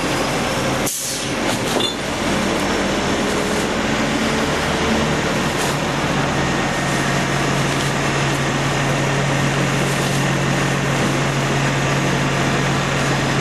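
Garbage truck's diesel engine running steadily at the kerb, with a short hiss of air about a second in. From about five seconds in, the engine settles into a steadier, even hum.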